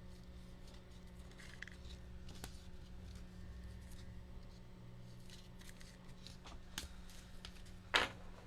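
Trading cards and rigid plastic top loaders being handled: light clicks, taps and short scrapes of card and plastic, with one louder, brief scrape near the end.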